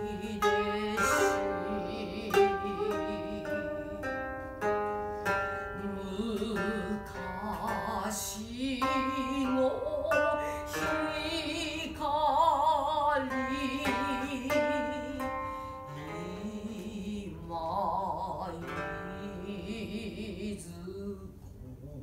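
Koto played solo: a run of plucked notes that ring and fade, some of them bent and wavering in pitch.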